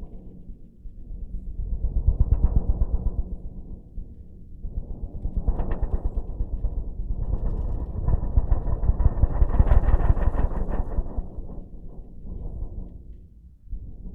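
Kick drum head hit rapidly from behind, giving a low rumbling roll that sounds like broken thunder, with its high end filtered off. The rumble swells and dies away in about four waves.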